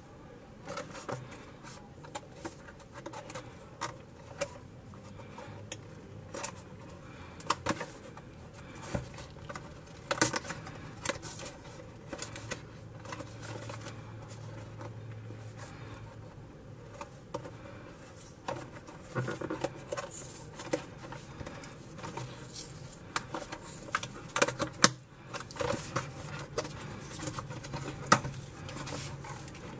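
A cardboard retail box with a plastic hang tab being handled and opened by hand: irregular taps, clicks, scrapes and rustles of the paperboard as the sealed flap is worked open, with a sharper crack about ten seconds in and again near the end.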